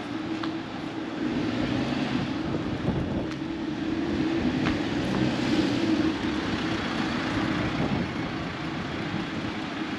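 Street traffic: a van drives past close by, its engine and tyre noise swelling through the middle and easing off, over a steady low hum of city traffic.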